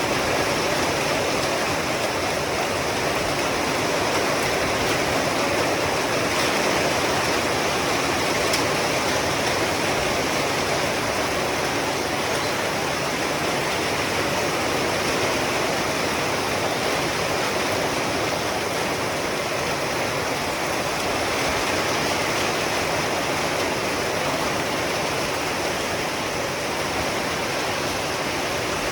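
Heavy rain falling: a steady, even hiss that stays at the same level throughout.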